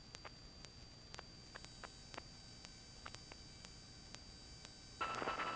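Faint electrical hiss and irregular clicks on a light aircraft's intercom and radio audio line, with no engine noise heard. About five seconds in comes a louder burst of radio static with a steady tone in it, as the radio is being tuned.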